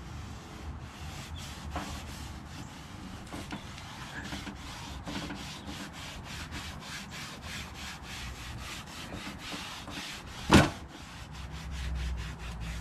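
A cloth rag wet with automatic transmission fluid is rubbed in quick repeated strokes over a riding mower's plastic hood and bumper. A single sharp knock stands out about ten and a half seconds in.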